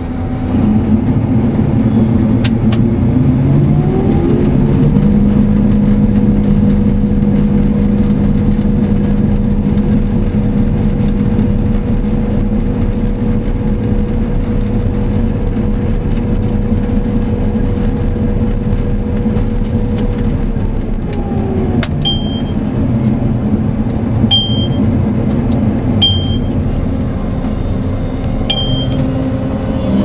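Claas Lexion combine harvester running, heard from inside the cab. A whine climbs in pitch a few seconds in, holds steady, and falls away about twenty seconds in. After that come short high beeps every couple of seconds.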